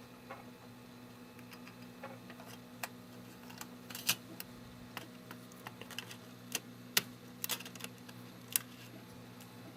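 Scattered small clicks and taps as a thin metal plate and small tools meet an iPod Touch's frame, with a faint steady low hum underneath.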